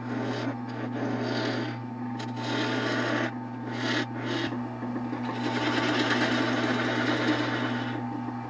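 Wood lathe running with a steady motor hum while a tool is held against the spinning Osage orange blank in on-and-off scraping strokes, with one longer continuous stroke in the second half.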